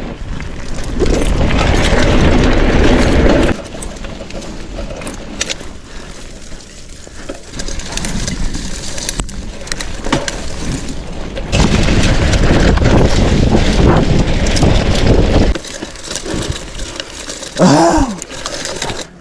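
Mountain bike ridden over a muddy trail: tyre and drivetrain noise mixed with gusts of wind on the microphone, which grow louder in two long stretches. Near the end there is a short tone that rises and falls.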